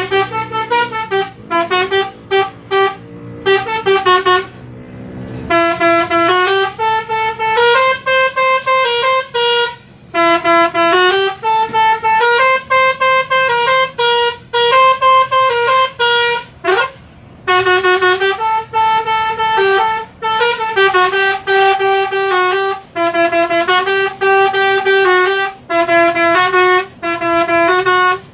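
Basuri telolet horn playing a tune: runs of short stepped notes and longer held notes in repeated phrases, with one quick upward slide a little past halfway. A low steady drone sits under the first few seconds.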